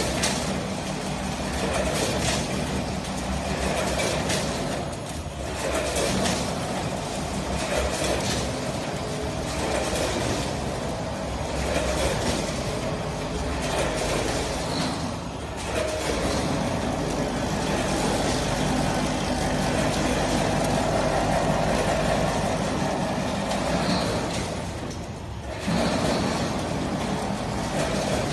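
ATM 420W automatic potato chip weighing and packing line running: the vertical form-fill-seal bagger cycles with repeating mechanical clicks and knocks every second or two over a steady machine drone.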